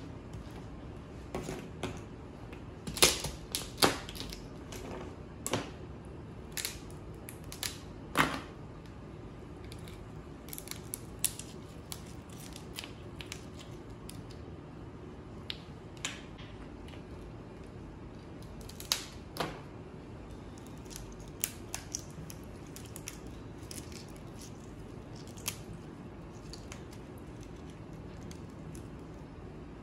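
Irregular sharp clicks and light cracks of cooked crab shell and legs being handled and broken as the meat is picked out by hand. The clicks come thickest in the first ten seconds and again around the middle, over a steady low hum.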